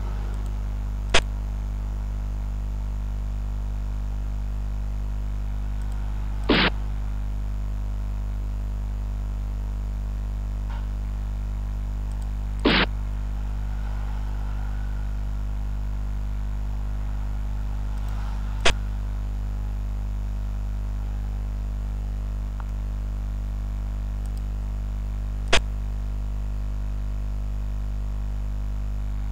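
Steady electrical hum with a short click-like sound effect about every six seconds, five in all, as xiangqi pieces are moved on the replay board; two of the sounds are a little longer than the others.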